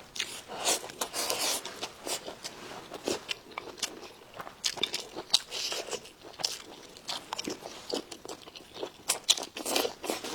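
Close-miked eating: a person chewing and biting food with irregular crunches, wet clicks and smacks.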